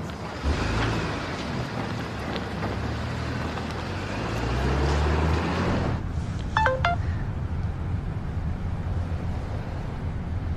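A car engine pulling away, its note rising as it accelerates, then fading out after about six seconds. A brief chime of a couple of short notes follows shortly after.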